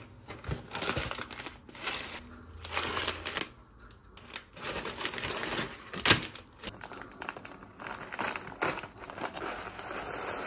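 Plastic snack and cereal packets crinkling and rustling as they are handled in a cardboard box, with scattered light clicks and one sharp knock about six seconds in.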